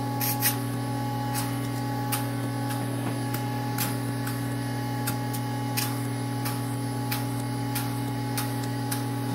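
DermaSweep microdermabrasion machine running with its vacuum handpiece in use: a steady hum with faint, regular ticks well under one a second.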